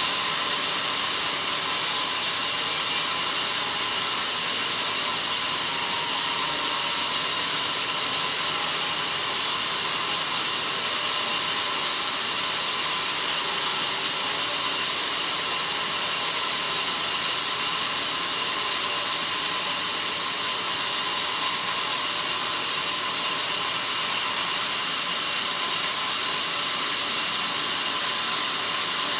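Sawmill bandsaw blade cutting steadily through a log, a loud high-pitched hiss. About 25 seconds in it drops in level and turns thinner.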